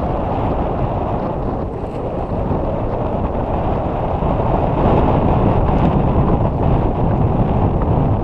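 Wind buffeting the camera's microphone: a steady, loud low rumble that grows a little stronger about five seconds in.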